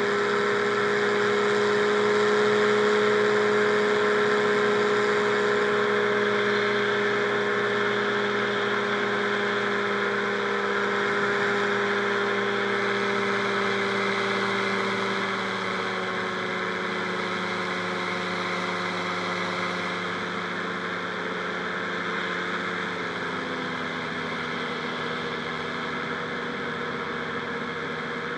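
Rotax 582 two-stroke twin engine of a Buckeye powered parachute, with its propeller, running steadily at high power. Its pitch eases down past the middle and drops to a lower throttle setting a few seconds before the end.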